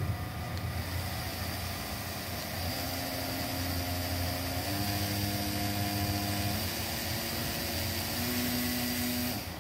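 Small geared DC motor running off an LED strip's dimmer, a steady hum with a whine that jumps to a new pitch every couple of seconds as the brightness setting, which works as its speed controller, is stepped. The sound stops abruptly near the end.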